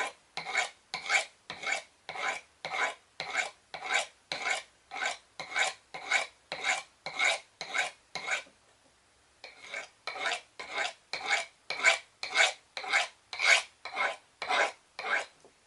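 A knife blade with an AUS6 steel edge being drawn in quick, even strokes across a coarse sharpening rod, about three scraping passes a second, with a short pause a little past halfway. The dulled edge is being brought back to sharpness.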